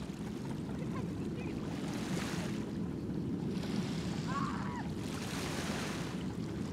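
Small waves washing at the water's edge every second or two over a steady low rumble.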